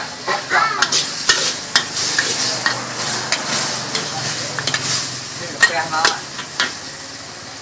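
Food sizzling in a hot pan while it is stirred, with a steady hiss and repeated sharp clinks and scrapes of a metal utensil.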